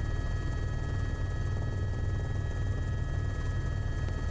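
Steady low drone of an aircraft in flight, with a few faint steady high tones over it.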